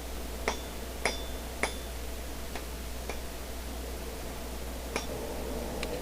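Hand hammer striking hot steel flat bar on an anvil while rounding the notched shoulder of a penny scroll: three blows about half a second apart, each with a brief metallic ring, then a few fainter, widely spaced taps.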